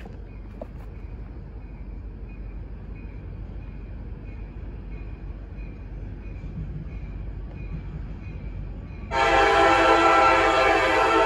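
Low rumble of an approaching freight train, then about nine seconds in the CSX SD70AC lead locomotive's horn starts suddenly in one loud, long blast, a chord of several notes held steadily.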